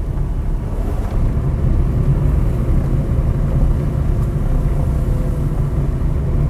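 A small car driving along, its engine and tyres giving a steady low rumble that builds slightly about a second in.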